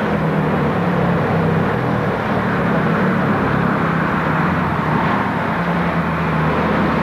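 Steady city street traffic noise, with vehicle engines running and a low hum underneath.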